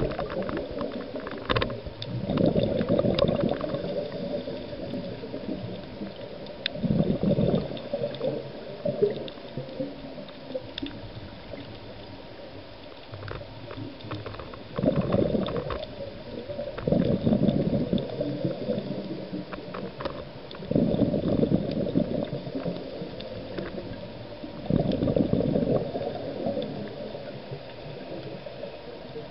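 Underwater: a scuba diver's exhaled bubbles gurgling out of the regulator in bursts of a second or two, recurring every few seconds, with scattered faint clicks in between.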